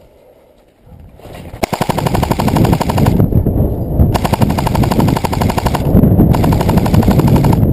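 Airsoft electric rifle firing full-auto: a fast mechanical rattle of rapid shots, starting about a second and a half in and coming in three long bursts with short pauses between.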